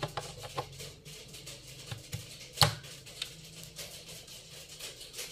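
Scattered light clicks and knocks of audio cables and connectors being handled and plugged in, with one sharper click a little over two and a half seconds in, over a faint low hum.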